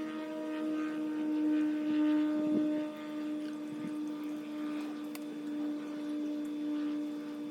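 Boat engine running steadily: a constant droning hum with a slight downward drift in pitch.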